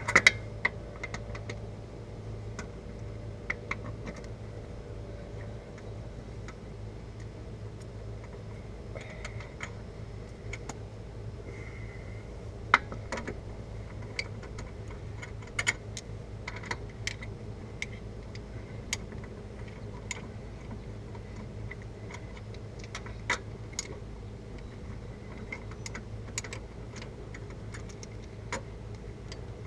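Hand ratchet and socket clicking as bolts on a front wheel hub are turned, with scattered metallic clinks of tools, spaced irregularly.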